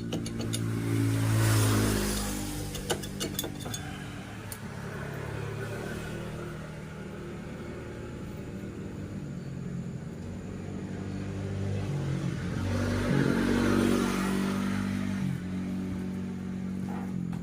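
A small motorcycle engine running, revved up twice: once about a second in and again around thirteen seconds, with some light clicks during the first rev.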